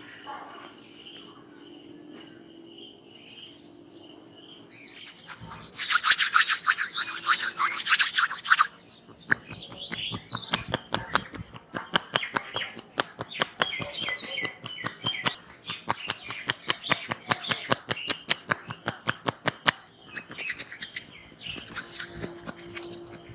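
Hands massaging a head close to the microphone: a few seconds of loud, rapid rubbing about five seconds in, then a long run of quick, even tapping strokes, several a second, with more rubbing near the end. Faint birdsong before the massage sounds start.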